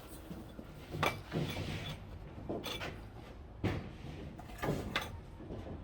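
Bricklaying work: a handful of separate scrapes and knocks as a steel trowel works mortar and bricks are set down and tapped into place.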